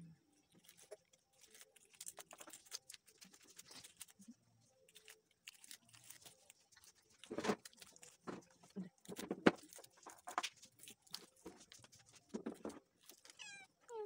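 Dry comb cells crackling and a plastic bag rustling as fingers break open the bee comb and pick out the larvae: many small irregular crackles, with a few sharper cracks around the middle.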